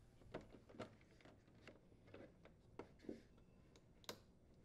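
Faint, scattered clicks and light taps of a plastic wiring cover being handled and lifted off a refrigerator's sheet-metal rear panel, in near silence.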